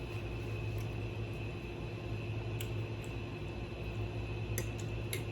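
Steady low hum and room noise, with a few faint short clicks.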